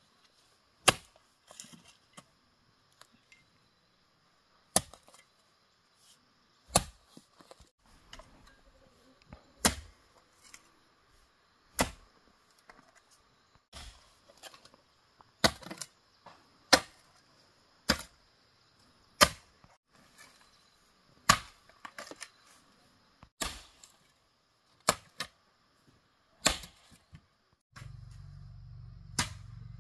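Repeated sharp knocks or strikes, one every one to two seconds and unevenly spaced, each ringing on briefly. A low steady hum starts near the end.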